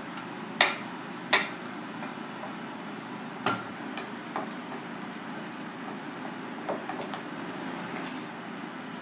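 An iron wok knocking twice against the rim of a rice bowl as fried rice is tipped out of it, then lighter knocks and clicks as the bowl is handled on the cutting board, over a steady kitchen hum.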